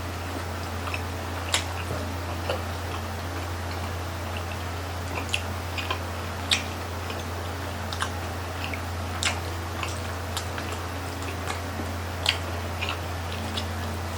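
Close-miked chewing of grilled chicken intestine barbecue (isaw), with irregular sharp mouth clicks and smacks about once a second, over a steady low hum.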